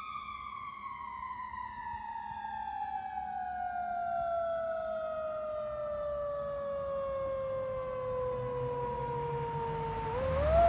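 Fire engine siren, one long tone sliding slowly down in pitch, then climbing again near the end.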